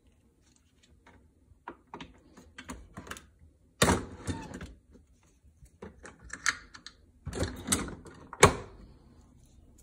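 Plastic clicks and clatter from the lid of a L'OR Barista capsule coffee machine as it is lifted open and pressed shut, ending in one loud sharp snap a little over a second before the end.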